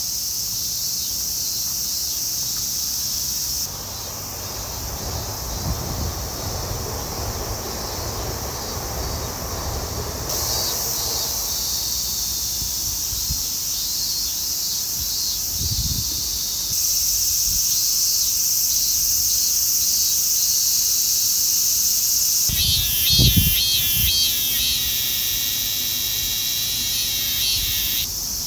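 Summer cicadas buzzing loudly in park trees, a dense, high chorus. Near the end one cicada's song comes in with a quick pulsing rhythm of about three pulses a second, a song odd enough to be remarked on. A couple of low thumps fall in between.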